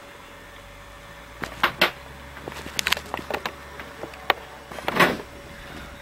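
Small handling noises from banding pliers being worked on a hummingbird's leg band: a few sharp clicks and light knocks. The loudest knock comes about five seconds in.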